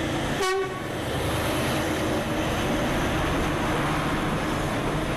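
Diesel locomotive train passing close by, with a short horn toot about half a second in, then the steady rumble and clatter of the train going by.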